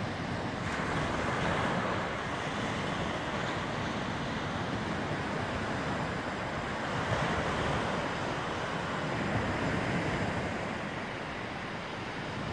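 Baltic Sea surf washing onto a sandy beach, a steady rush of small breaking waves that swells a little a couple of times, with wind buffeting the microphone.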